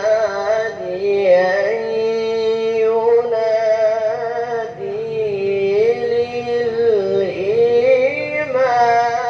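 A male Qur'an reciter chanting in the melodic tilawah style through a microphone. He draws out long melismatic phrases in a high voice, the pitch winding slowly up and down.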